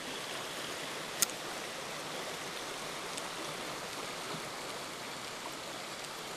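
Shallow mountain stream rushing steadily over rocks in a riffle, with one sharp click about a second in.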